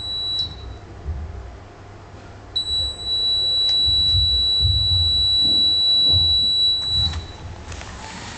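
Handheld electronic buzzer sounding one steady high-pitched tone close to a fire-fighting robot: a short blip at the start, then a held tone of about four and a half seconds that cuts off near the end. It is the start tone that sets the robot off; it drives away just after the tone stops.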